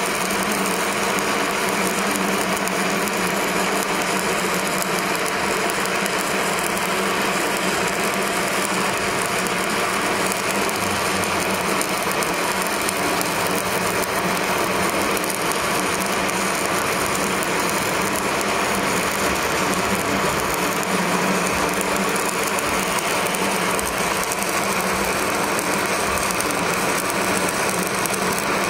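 Stick-welding arc on steel, crackling and sizzling steadily without a break as the bead is run along the joint.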